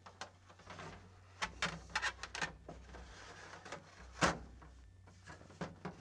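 A loose dash top being handled and set onto a car's dashboard: a run of light knocks, taps and scrapes, with one sharper knock about four seconds in.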